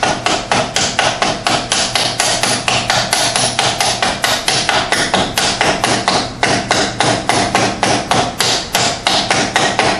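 Hammer blows on a steel bearing driver cup, about four a second, driving a new 40x74x40 wheel bearing into an ATV's rear hub. Each blow is a sharp metallic knock with a short ring.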